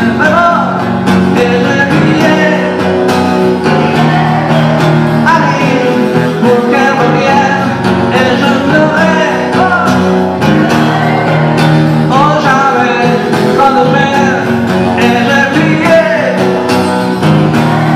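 Music: steadily strummed acoustic guitar under a lead melody line that slides up into its notes, played live.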